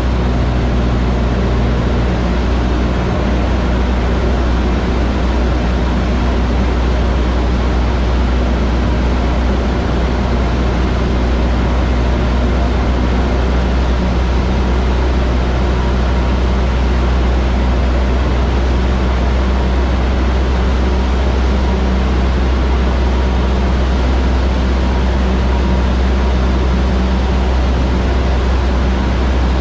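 Cockpit noise of a high-wing single-engine light aircraft in flight: the piston engine and propeller drone steadily with a deep hum under a wide rushing noise, and the engine's tone shifts slightly partway through.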